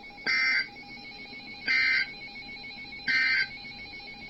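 NOAA Weather Radio SAME end-of-message data bursts: three short digital screeches about a second and a half apart, marking the end of the warning broadcast. Faint steady tones and radio hiss lie underneath.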